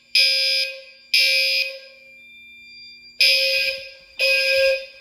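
Gentex fire alarm horns sounding in the temporal-three evacuation pattern: loud half-second blasts about a second apart, in groups of three with a longer pause between groups. The system is in alarm after a manual pull station was pulled.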